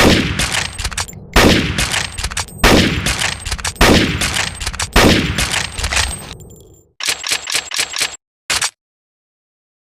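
Gewehr 98 bolt-action rifle firing five shots about 1.2 s apart, each with a ringing tail. About seven seconds in comes a quick run of short mechanical clicks, one more click follows, and then it goes silent.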